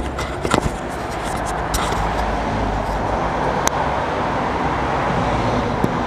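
Steady low motor-vehicle engine rumble, with a few sharp knocks and clicks in the first second and one more click about halfway through.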